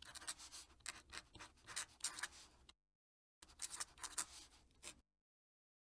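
Fountain pen nib scratching quietly across paper in quick cursive strokes. There are two runs of writing with a short break between them, and the sound stops about five seconds in.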